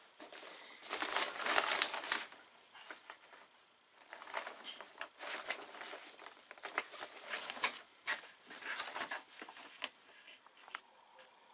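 Stiff Dacron sailcloth crinkling and rustling as the sail is handled and smoothed flat, in irregular crackly bursts, loudest about one to two seconds in and again through the middle, fading near the end.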